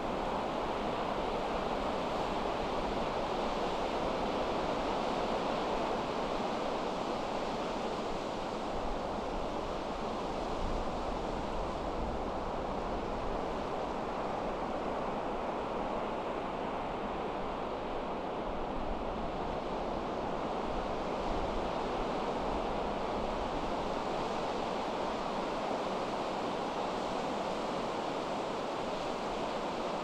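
Pacific surf on a sandy beach as a steady, continuous wash, with wind buffeting the microphone.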